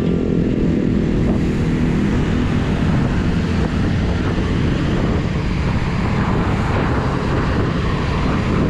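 Wind rushing over the microphone of a bicycle rider coasting downhill, a steady low rumble.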